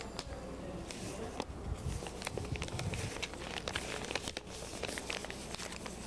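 Paper rustling and crinkling as a folded sheet of paper is handled, heard as a run of small irregular crackles.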